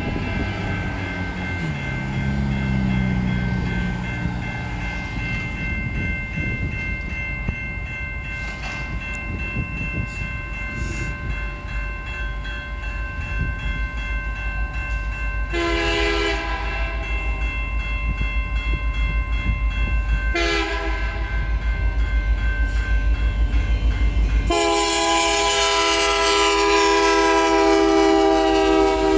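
Diesel freight locomotive horn sounding for a grade crossing: two short blasts about 16 and 20 seconds in, then a long, loud blast near the end as the locomotives reach the crossing. Under it are the steady ringing of the crossing signal bell and the rumble of the diesel engines and wheels on the rails.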